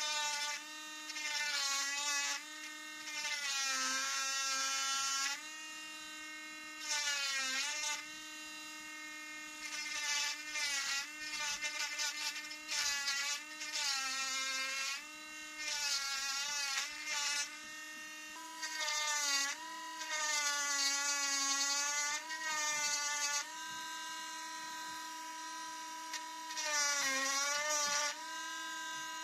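Cordless mini rotary engraving pen whining steadily as its fine burr carves into a wooden knife handle. Its pitch drops again and again, with a hissing grind, each time the bit bites into the wood.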